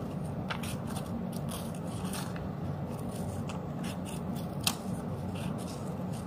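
Scissors snipping through bond paper in short, irregular cuts, with one sharper snip about three-quarters of the way through.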